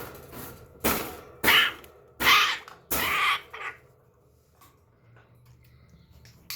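African grey parrot giving harsh, raspy growling screeches, a run of about five short loud calls in the first four seconds, then quiet: the agitated calls of an angry parrot.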